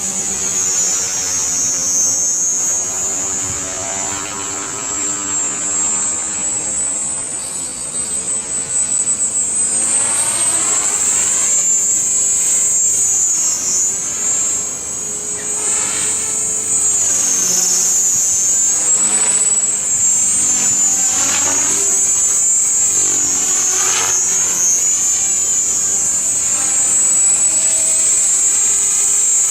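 Art-Tech Genius 500 electric RC helicopter in flight: a loud, high-pitched whine over the rotor noise, wavering slightly in pitch, with the sound sweeping and shifting as the helicopter moves about.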